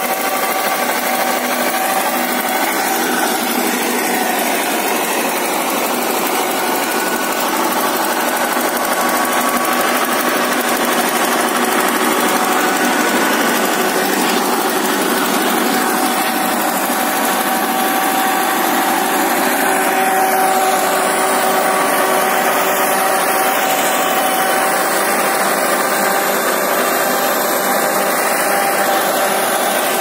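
1967 Belarus tractor's diesel engine running steadily under load as it pulls a rotavator through the soil, with a steady whine running through the engine sound.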